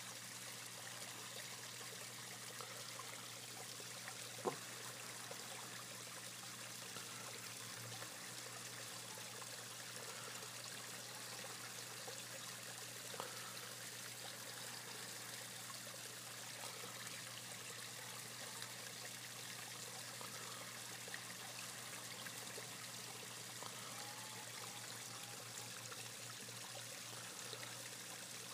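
Faint steady trickle of running water into a koi pond, with a sharp click about four and a half seconds in and a softer one a little past the middle.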